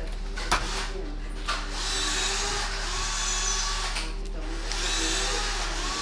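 A small motor-driven tool running in two spells of about two seconds each, with a short pause between, and a sharp click about half a second in.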